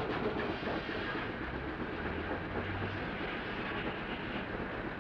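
Steam mill machinery running steadily: a continuous even mechanical noise, with a low hum that comes and goes about a third of the way in.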